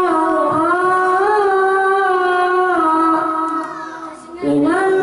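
A boy singing sholawat solo into a microphone: long, drawn-out melodic phrases with held notes that bend up and down. The line breaks off about four seconds in for a breath, and the next phrase starts just before the end.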